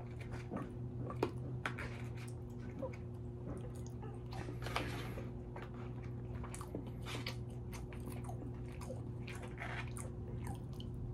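Close-up chewing and mouth sounds of someone eating grilled salmon and fries, with scattered small clicks and crackles as a plastic fork works in a moulded-fibre takeout box. A steady low hum sits underneath.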